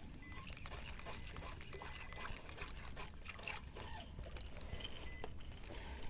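Light water splashing and small scattered splashes, faint, over a low wind rumble on the microphone.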